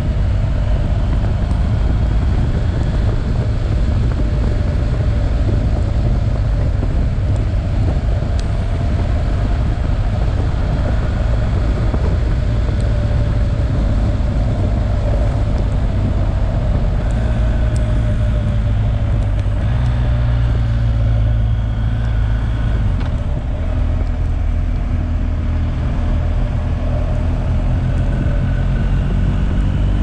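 BMW R1250GS Adventure's boxer-twin engine running under way. The engine note rises and falls with the throttle and climbs near the end as the bike accelerates.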